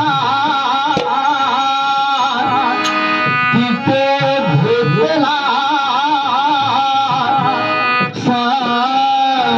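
A man sings a Marathi devotional folk song with a wavering, ornamented melody, accompanied by harmonium chords and a few sharp drum strokes.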